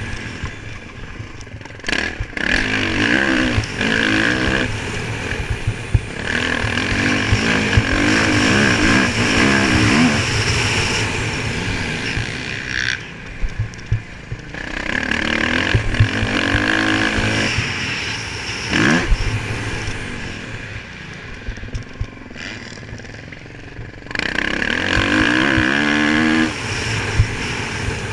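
Motocross bike engine heard from on board, revving hard and easing off again and again as it is ridden round a dirt track, pitch rising and falling through the throttle changes, with occasional sharp knocks.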